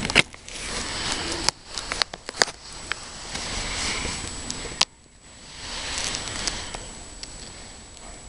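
Handling noise from the recording camera: rustling and rubbing close to the microphone, broken by several sharp clicks and knocks.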